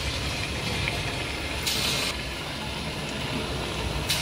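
Hot oil sizzling in a steel kadhai as dollops of cabbage Manchurian batter deep-fry in it, the sizzle flaring up louder about two seconds in and again near the end as more batter goes in.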